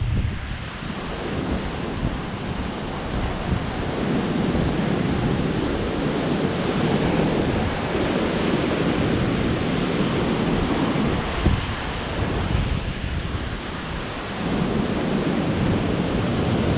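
Ocean surf breaking and washing up a sand beach, swelling and easing as the waves come in, with wind gusting on the microphone.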